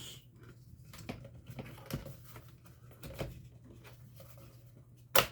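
A laptop battery being fitted into its bay: light plastic handling with a few soft knocks, then one sharp click near the end as it seats.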